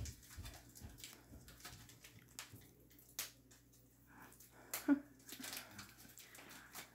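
Faint handling sounds of a dog chew bone being turned over in the hands: soft clicks and rustles, with one sharper click about five seconds in.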